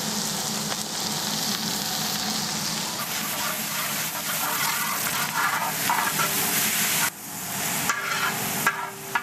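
Sliced shallots and green chillies frying in hot coconut oil in a large uruli, a steady sizzle as a ladle turns them over. The sizzle drops briefly about seven seconds in.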